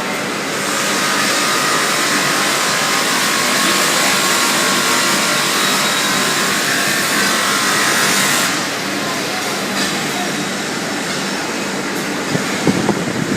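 Automatic rotary cookware inside-sanding machine running, with a steady motor hum and a loud abrasive hiss of sanding on metal. The hiss swells about a second in and drops back after about eight seconds, and there are a few sharp clicks near the end.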